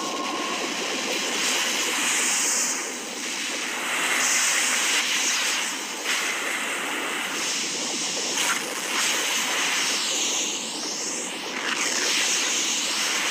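Steady rushing, roaring noise from the soundtrack's sound design that swells and eases every couple of seconds, with a swooping whoosh about ten seconds in.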